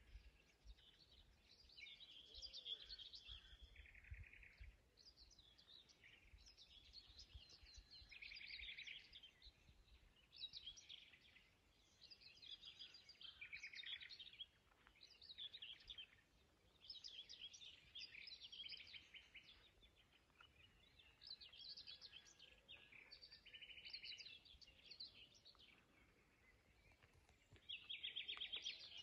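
Songbirds singing at dawn: short phrases of rapid high notes repeat every couple of seconds, some phrases longer and trilled. A faint low rumble comes and goes underneath.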